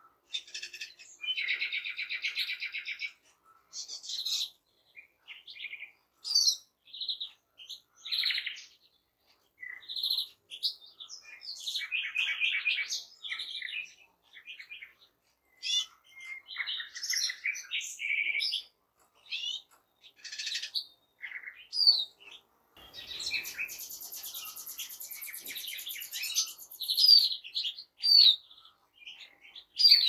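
A chorus of finches (goldfinch, greenfinch and siskin) singing, with quick chirps, twittering phrases and rapid trills. Between about 23 and 27 seconds in there is a harsh, buzzing passage.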